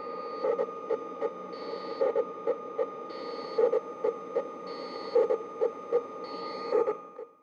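Looping electronic noise music: a steady high drone under a repeating pattern of low pulses, with a short high beep about every one and a half seconds. It fades out just before the end.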